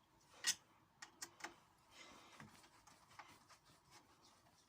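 A few faint, sharp little clicks and ticks from a screw being driven back into a door lock faceplate, the loudest about half a second in.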